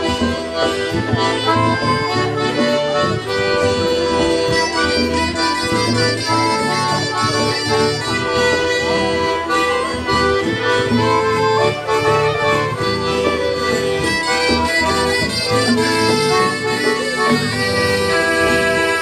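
Live Breton fest-noz dance music from a folk band, with accordion and harmonica carrying the tune in long held notes over electric guitar and keyboard.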